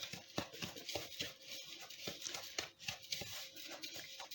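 A utensil stirring and scraping buttery biscuit crumbs around a bowl: a quick run of short scrapes and clicks, about three or four a second.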